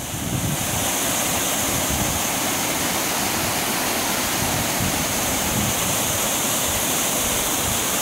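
Steady rushing roar of whitewater pouring over the rock lip at the top of a waterfall.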